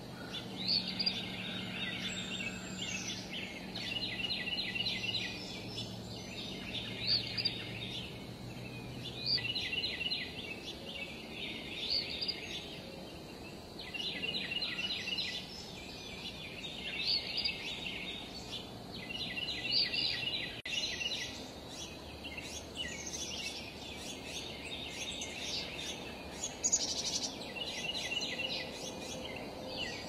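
Songbirds singing: a short, fast run of chirping notes repeated about every two seconds, with higher slurred whistles in between, over a faint low background hum.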